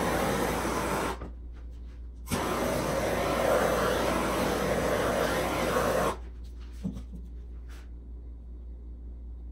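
Handheld torch flame hissing as it is played over wet epoxy resin. It cuts out about a second in, comes back on sharply a second later and runs until it shuts off a little past the middle.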